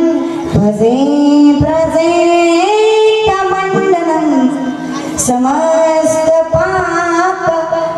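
A woman singing a devotional Sanskrit verse in kirtan style, in long held notes that step up and down and slide between pitches, with short breaths between phrases.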